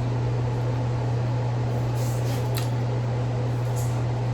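Steady low hum throughout, with a few faint soft mouth clicks about two seconds in and again near the end: a person chewing soft cake.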